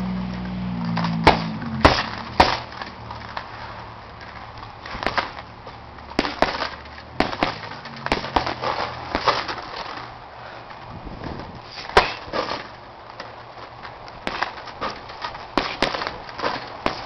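Boxing gloves smacking a hanging heavy bag in irregular punches and short combinations, with three hard hits in the first two and a half seconds and another about twelve seconds in. A low hum fades out over the first two seconds.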